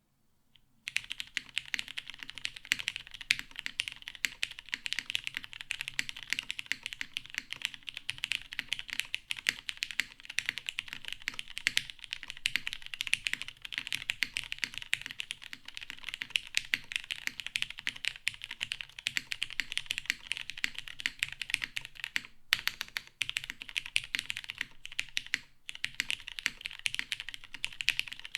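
Fast continuous typing on a mechanical keyboard with lubed vintage Cherry MX Brown tactile switches in an FR4 half plate, keycaps clacking in a rapid stream that starts about a second in, with two short pauses near the end.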